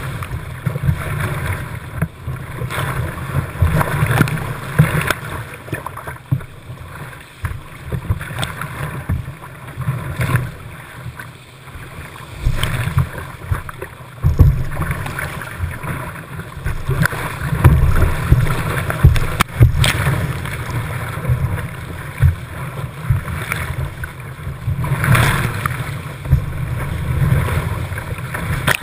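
Whitewater rapids rushing and splashing around a kayak, heard from a camera mounted on the kayak's deck that is hit by spray. It is a loud, uneven rushing with a deep rumble and scattered knocks and splashes as the boat runs the rapids.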